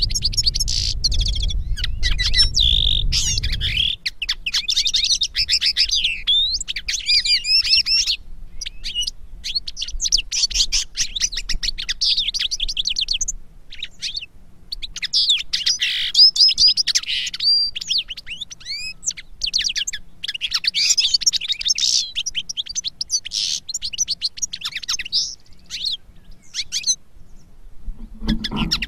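Finch song in long runs of rapid twittering, high warbled notes and trills, broken by short pauses, the longest about 13 to 14 seconds in. A low rumble sits under the first four seconds.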